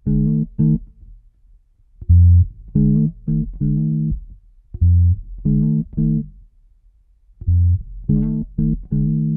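Intro theme music: a low riff of separate notes played in four short phrases, with brief pauses between them.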